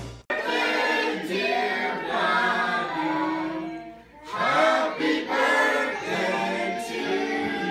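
A group of voices singing together without instruments, with a short break about four seconds in.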